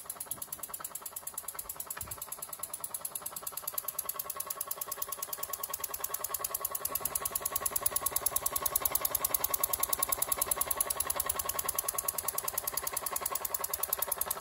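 Fleischmann 122/3 toy stationary engine's single cylinder running fast on compressed air, making a rapid, even beat of exhaust puffs that grows louder over the first half.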